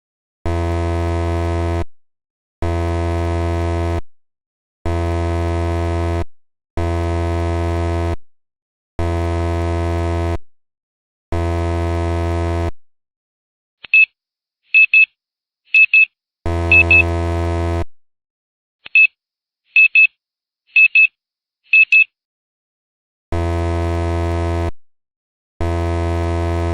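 Low electronic buzzer tone, sounding in blasts of about a second and a half with short gaps, nine times in all. Two runs of four short high beeps come between the blasts, partway through and again later.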